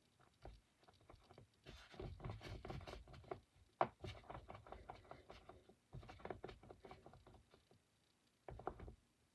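Faint, uneven rubbing of palms rolling a thin coil of wet clay back and forth on a tabletop, with a few soft taps.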